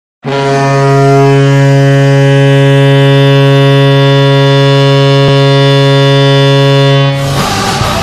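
Arena hockey goal horn sounding one long, low, steady blast of about seven seconds, the Maple Leafs' goal horn. As it cuts off, loud rock music with singing starts, the goal song.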